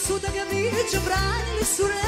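Live folk wedding band music: a steady pulsing bass beat under a wavering, ornamented lead melody.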